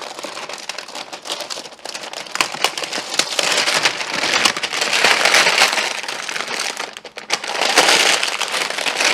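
Packaging rustling and crinkling as a boxed accordion folding door is unpacked by hand, a dense run of small crackles that gets louder in the middle and again near the end.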